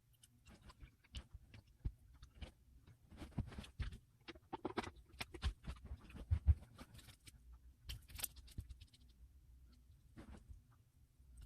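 Irregular small clicks, taps and light knocks of nail polish bottles and caps being handled, with a short scrape about eight seconds in.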